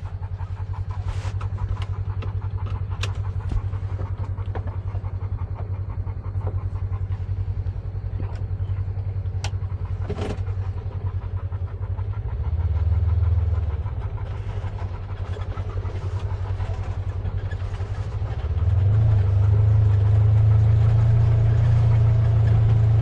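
Side-by-side UTV engine running as it drives slowly along a dirt trail. It gets louder briefly about twelve seconds in, then again for the last few seconds as the throttle opens. A few sharp clicks are heard in the first half.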